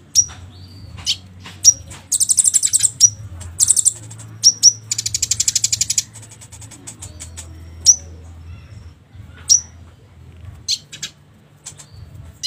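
Olive-backed sunbird (kolibri ninja) calling: sharp, high, down-slurred chirps every second or so, with rapid high buzzing trills about two seconds in and again from about five to six seconds in, played as a lure to set a silent bird singing. A faint steady low hum lies underneath.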